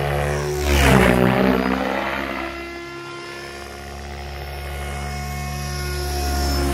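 Radio-controlled model helicopter in flight, its rotor and drivetrain making a pitched whine. It is loudest about a second in, as the pitch of the whine swoops down and back up, then settles to a steadier whine that grows louder again toward the end.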